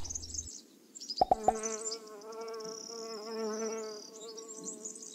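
Cartoon sound effects: birds chirping throughout, three quick plucked notes about a second in, then a bee buzzing for about two and a half seconds.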